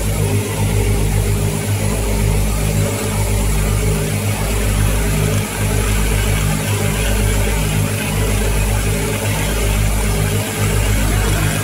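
Automatic breathing-filter assembly machine running: a steady low mechanical hum with a faint hiss above it. The low rumble dips briefly about every second and a quarter, in a regular cycle.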